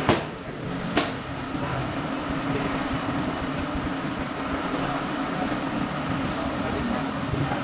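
Steady hum of tyre-shop machinery, with two sharp metallic clicks, one right at the start and one about a second in.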